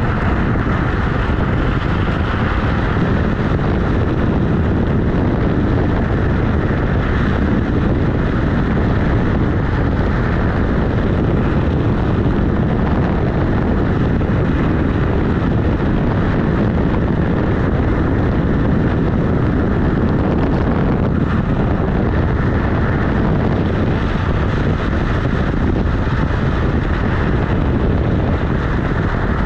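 Steady rolling rush of a Kugoo G-Booster electric scooter's knobbly tyre on asphalt, mixed with wind buffeting the microphone.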